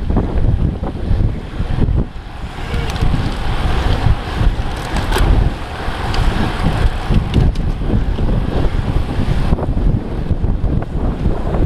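Wind buffeting the microphone of a moving camera: a heavy, gusting rumble. A hiss rises over it for most of the middle of the stretch, strongest about five seconds in.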